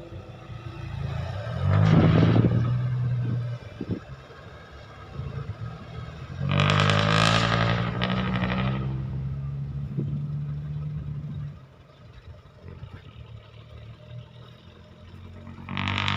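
Kobelco SK135SR excavator's diesel engine revving up under hydraulic load in two surges, about 1.5 s in and again from about 6.5 s to 11.5 s, dropping back to a lower run between, with a few clanks.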